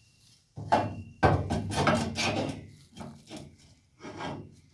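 A series of sharp knocks and clanks from metal bracket pieces being handled and set in place, one ringing briefly.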